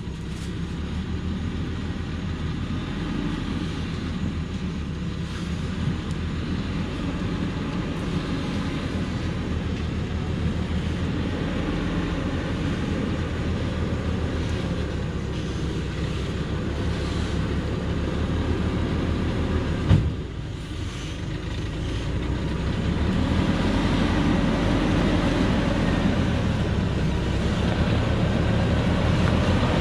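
Diesel engine of a Thaco Forland truck laden with acacia logs, running steadily at low speed as it crawls down a rocky forest track. It grows louder as the truck comes closer near the end, with one sharp knock about twenty seconds in.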